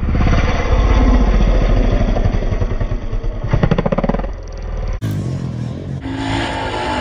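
Motocross dirt bike engine revving hard as the bike climbs a jump face, with the pitch rising just before takeoff. About five seconds in the sound cuts abruptly to another stretch of the engine running.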